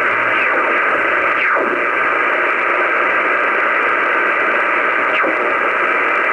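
Shortwave receiver hiss filling the speaker as the dial is tuned between stations, with three quick falling whistles as the tuning sweeps past signals.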